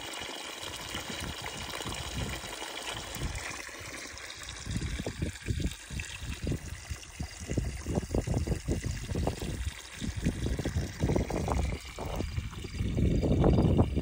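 Water pouring from a plastic pipe in a thin, steady stream and splashing below. About four seconds in, this gives way to irregular gusts of wind buffeting the microphone, loudest near the end.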